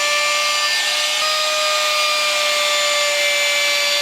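Handheld power tool working spalted beech, a steady high motor whine over a rough hiss of the wood being cut away; about a second in the pitch shifts slightly and then sinks slowly as the tool takes load.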